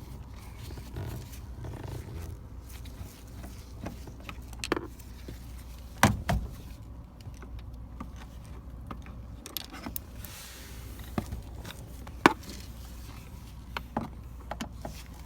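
Scattered clicks, clinks and knocks of hand tools and fasteners on a car's inner door panel as it is unscrewed, the sharpest knocks about six and twelve seconds in.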